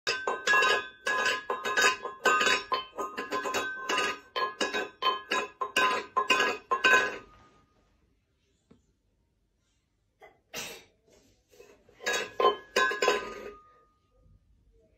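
Rapid, repeated clinking of a small hard object that rings, like glass or metal being tapped, several strikes a second for about seven seconds. After a pause there is a brief clink and then a second shorter run of clinking.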